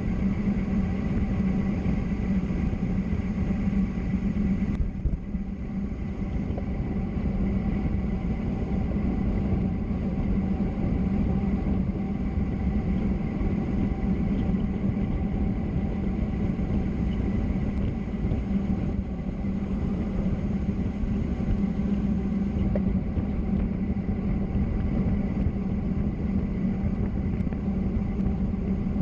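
Steady rush of road and wind noise from travelling fast downhill, with a constant low hum underneath; it eases briefly about five seconds in.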